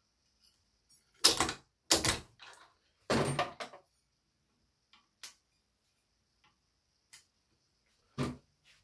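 Knocks and clatter of tools and machine parts being handled during racket stringing: two sharp knocks about a second apart, a longer rattling clatter about three seconds in, then a few lighter clicks and one more knock near the end.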